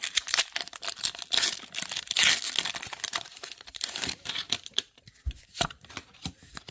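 Foil wrapper of a Pokémon TCG booster pack crinkling and being torn open, then a few soft taps near the end as the cards are handled.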